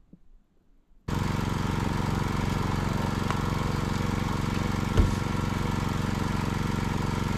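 An engine idling steadily, with an even, low pitched hum. It cuts in abruptly about a second in and runs unchanged, with a single thump about five seconds in.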